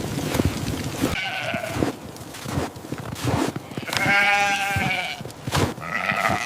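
Sheep bleating three times: a short bleat about a second in, a longer quavering one about four seconds in, and a short one near the end. Scattered short thumps of footsteps run throughout.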